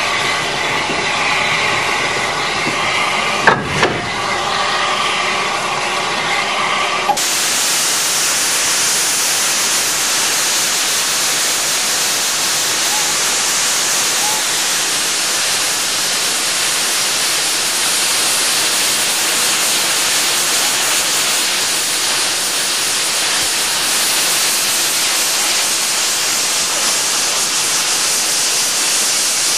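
Southern Railway U class steam locomotive 1638 hissing steam. For the first seven seconds a quieter hiss carries a steady hum of several tones and a sharp knock about three and a half seconds in; then the sound changes suddenly to a loud, even hiss of escaping steam.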